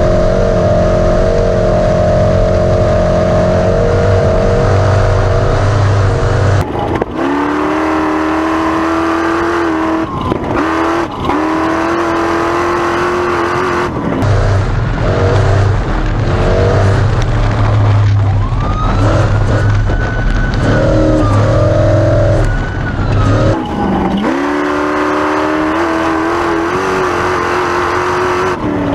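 Class 1450 Ford Ranger off-road race truck's engine running hard at high revs, with sharp drops in pitch and quick climbs back up about seven, ten, eleven, fourteen and twenty-four seconds in, as the throttle lifts or the gears change.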